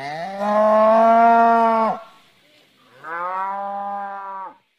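Cow mooing twice: a long, louder moo that ends about two seconds in, then a shorter moo a second later.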